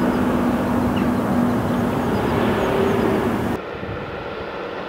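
Heavy diesel earthmoving machinery running steadily with a low engine hum. About three and a half seconds in, the sound cuts abruptly to a quieter, duller rumble.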